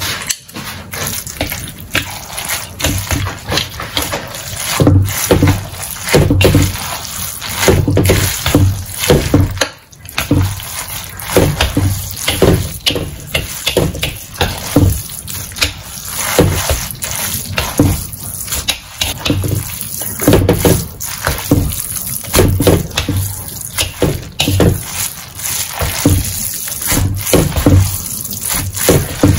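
Instant noodles sizzling in a hot wok as they are stirred and tossed with wooden chopsticks, with irregular knocks and scrapes of chopsticks and noodles against the pan over a steady hiss.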